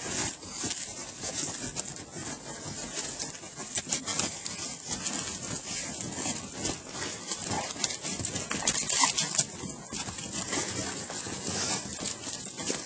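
An Irish Red and White Setter scrambling and romping through snow: her paws scuff and thud in quick, irregular steps throughout.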